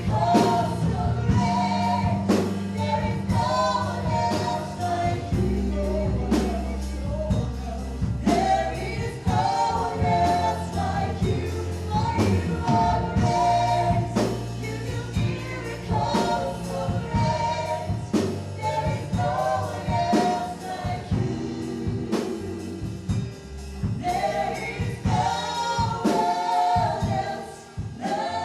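Live gospel worship song: a group of singers over a band with bass, keyboard and drums.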